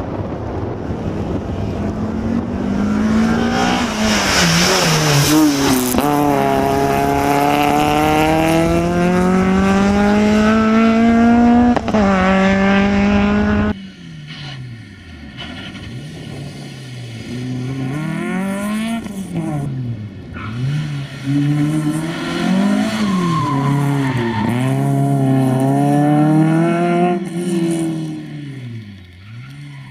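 Peugeot 306 rally car's engine at high revs on a rally stage. The first time it comes close and goes by loud, the pitch climbing steadily through a gear, dropping at each shift. It is then heard again further off, revs rising and falling quickly as the driver lifts, brakes and changes gear through the bends.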